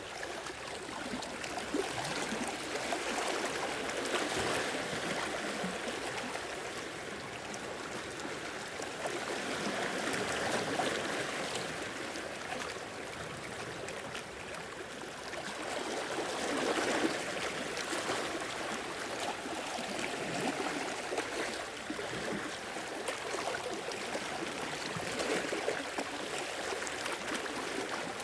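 Sea waves washing and sloshing against rocks, swelling and ebbing every few seconds with gurgling water.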